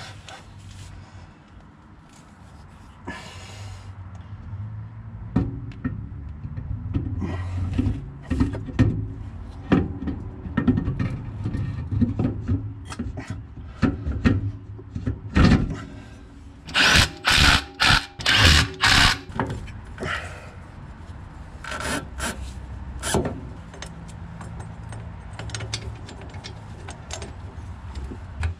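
Metal clunks, scrapes and rattles as a Suzuki Vitara's rear differential centre is slid onto the axle housing studs and its nuts are done up, over a steady low hum. About two-thirds of the way through comes a run of short, loud tool bursts.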